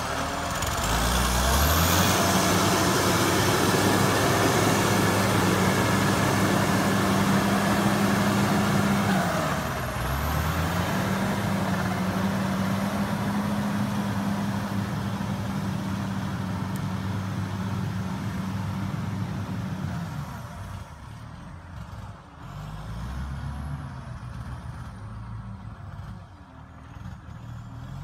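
John Deere 670CH motor grader's diesel engine running steadily as the machine works, its pitch dipping briefly and recovering about ten seconds in. After about twenty seconds it grows quieter as the grader moves away.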